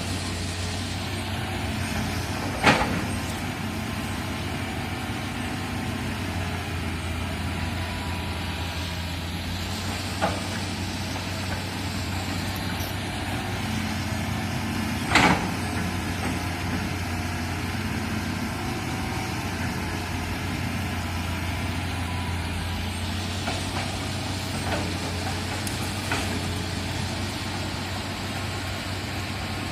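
Excavator diesel engine running steadily, with a few sharp knocks, the loudest about three seconds in and again midway.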